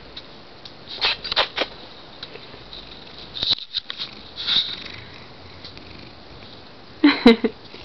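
Short bursts of soft rustling and scratching from a cat squirming on its back on a fabric blanket, in two groups about a second and three and a half seconds in. A brief voice-like sound near the end.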